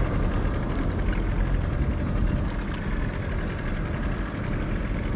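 Small outrigger boat's engine running steadily while the boat is underway.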